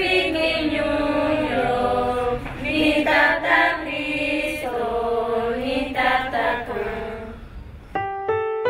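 A choir singing. Near the end the singing gives way to a piano playing separate notes.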